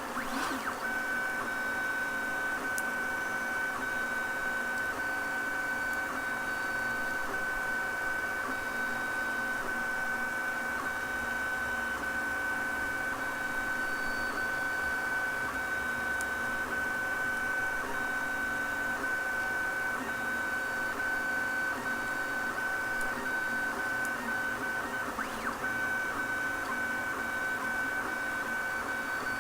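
MendelMax 1.5 3D printer running, its stepper motors giving a steady high-pitched whine over several fainter steady tones, with a few faint clicks.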